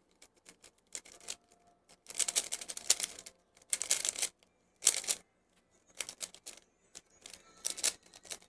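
A 3x3 speedcube being turned by hand: quick flurries of rapid plastic clicking as the layers are turned, in about half a dozen bursts separated by short pauses.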